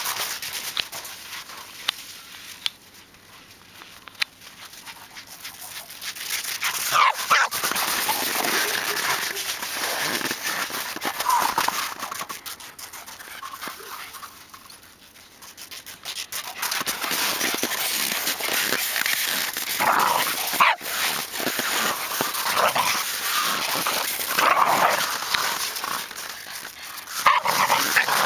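Jack Russell terriers barking and yipping in bouts as they play, with quieter stretches of a few seconds near the start and about halfway through.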